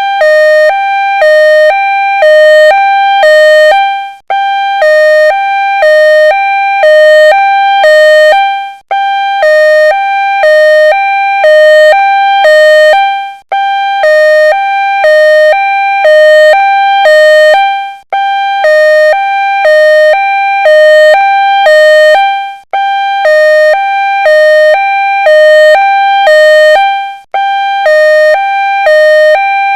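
Two-tone ambulance siren alternating steadily between a high and a low note, each held about half a second. It breaks off briefly every four to five seconds and starts again.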